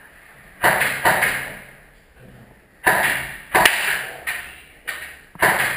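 Airsoft guns firing: about seven sharp cracks at irregular spacing, each followed by a short echo.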